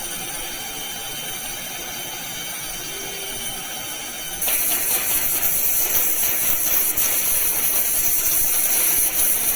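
Air-driven dental equipment hissing steadily with a faint high whine. About four and a half seconds in, a much louder, brighter hiss of air starts and keeps going.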